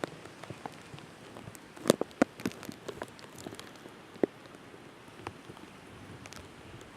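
Hurricane rain and wind making a steady hiss, with scattered sharp raindrop taps on the plastic bag wrapped around the camera, a quick cluster about two seconds in and one louder tap about four seconds in.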